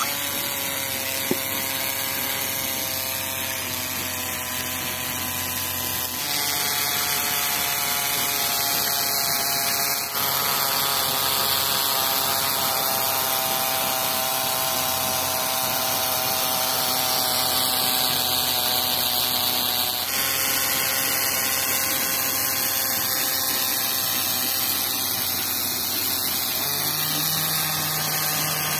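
Small DC motor running steadily with a whine, driving a belt-driven miniature water pump, with the pumped water splashing out of the outlet pipe. The tone shifts abruptly a few times.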